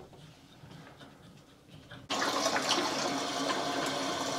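Water suddenly starts rushing through the boiler drain and hose about two seconds in, then keeps up a steady gush as the heating system is flushed of sediment.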